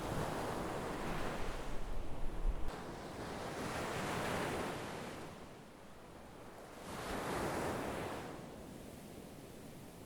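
Sea waves surging and washing onto shore, three swells that build and fade a few seconds apart. A low rumble sits under the first surge and stops abruptly a couple of seconds in.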